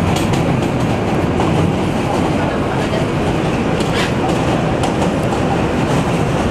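New York City subway M train running steadily, heard from inside the car: a continuous rumble of wheels on rail with scattered sharp clicks, the clearest about four seconds in.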